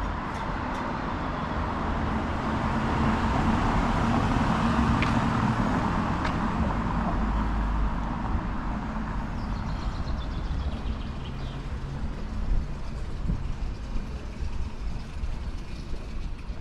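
A motor vehicle driving past on a street: engine and tyre noise swells to its loudest a few seconds in, then fades away.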